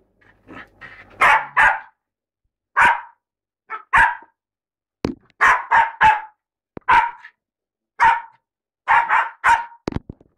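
Bichon Frise barking in play, about a dozen short, loud barks, many coming in pairs or quick runs.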